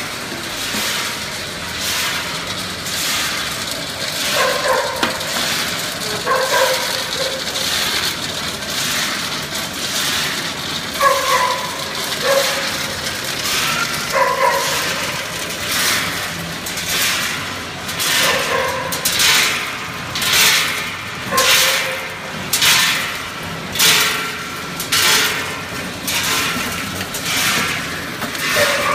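Automatic bag filling and sealing line with its bucket elevator running: a steady mechanical clatter and hum. Over it come short pitched yelp-like calls every second or two. From about two-thirds of the way in, a sharp rushing noise repeats roughly once a second.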